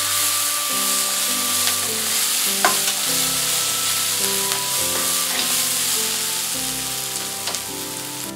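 Fried squid with onion and peppers sizzling in hot oil in a non-stick frying pan while being stirred with a spatula, with a few sharp clicks of the spatula on the pan. The sizzle fades toward the end, the heat having just been turned off.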